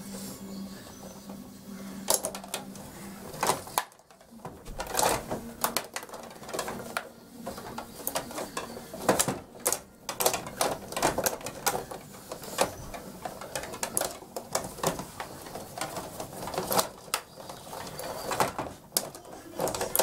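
Rod table hockey game in play: the rods rattling and sliding as they are pushed and twisted, and the puck clacking against the player figures and the boards in quick, irregular clicks, with a short lull about four seconds in.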